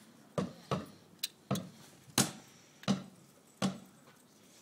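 Irregular sharp clicks and knocks, about seven over three and a half seconds, from hands working a lever and a switch on a Hatz E95 diesel generator set.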